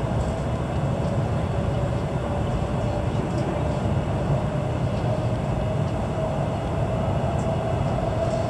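Hokuriku Shinkansen train running, heard from inside the passenger car: a steady low rumble with a faint tone that climbs slowly in pitch.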